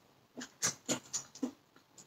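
Someone biting and chewing fried chicken: a quick series of about five short crunches.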